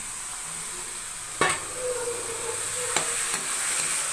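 Oil frying in a kadai with onion and ginger-garlic paste, a steady sizzle stirred with a metal spatula. About a second and a half in, a sharp knock against the pan as the raw chicken pieces go in, and the sizzle then gets louder; a second, smaller knock comes about three seconds in.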